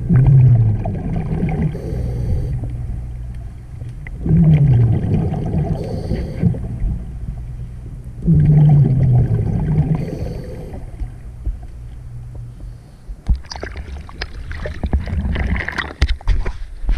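Scuba diver's exhaled bubbles gurgling out of the regulator underwater, three breaths about four seconds apart. Near the end comes a spell of scattered clicks and crackles.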